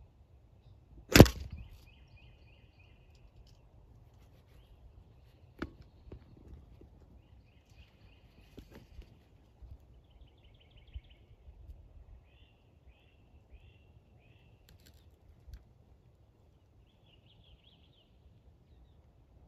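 A single sharp crack about a second in, the loudest sound, then a few fainter clicks, while small birds call in short high chirps and trills scattered through the rest.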